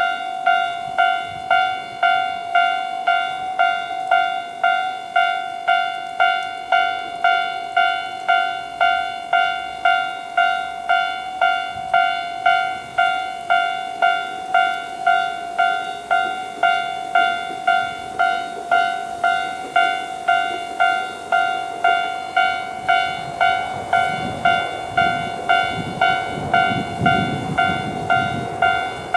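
Japanese level-crossing alarm sounding its standard electronic ding at a slow, steady tempo, about one and a half strikes a second, warning of an approaching train. Near the end a low rumble builds underneath as the YR-880 diesel railcar draws near.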